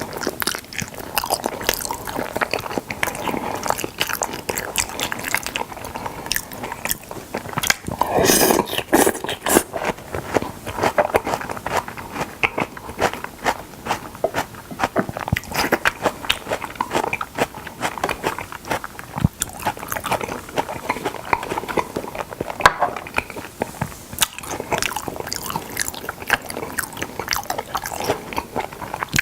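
Close-miked chewing and biting of raw salmon: wet, irregular mouth clicks and smacks that go on throughout, louder for a moment about eight seconds in.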